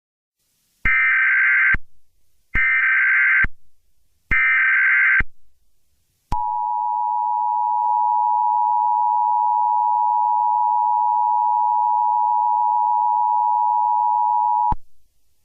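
Emergency Alert System tones: three short screeching bursts of SAME digital header data, each just under a second with short gaps between, followed by the EAS two-tone attention signal, a steady dual tone (853 and 960 Hz) held about eight seconds that cuts off suddenly.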